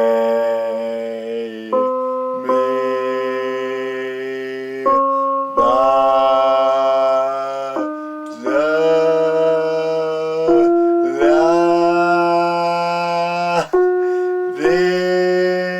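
Music: slow, sustained chords of steady held notes, moving to a new chord every one to three seconds.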